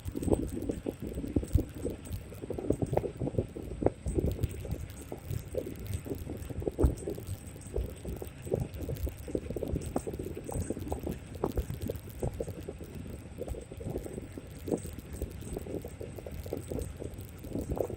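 Xiaomi M365 electric scooter ridden over a rough, wet road: irregular knocks and rattles from the deck and stem as it hits bumps, over a low rumble of wind on the microphone.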